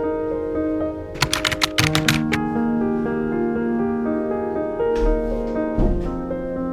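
Soft background piano music with held notes. A little over a second in comes a quick run of about ten sharp clicks, and there is a low thump near the end.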